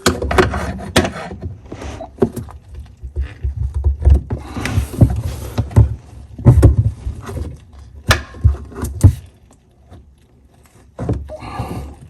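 Clicks, knocks and scraping of an old faucet's parts being worked back and forth by hand, with a pause about two-thirds of the way through; the part is stuck and won't come free.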